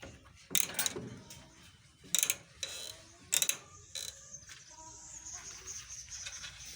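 A run of sharp mechanical clicks and rattles, about six in the first four seconds, followed by a faint steady high-pitched tone.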